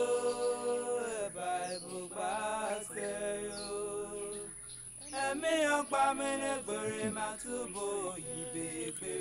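A man's voice singing an unaccompanied, chant-like melody with long held notes that bend in pitch.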